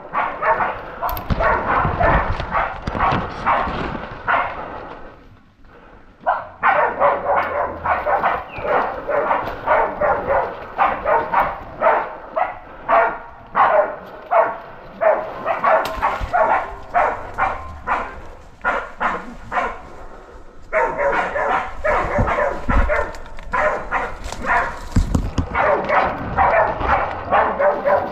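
Pig-hunting bailing dogs barking rapidly and continuously, several barks a second, with a brief lull about five seconds in and a quieter stretch near twenty seconds in.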